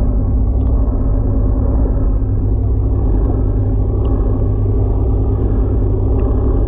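A boat engine running steadily: an even, deep rumble with a steady hum through it.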